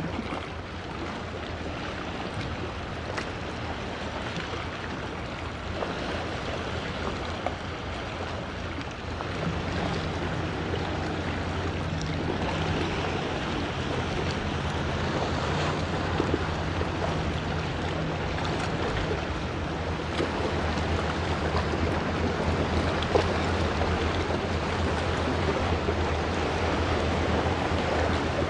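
Low steady hum of a large ship's engine over waves washing and wind on the microphone. A second, slightly higher hum joins about ten seconds in.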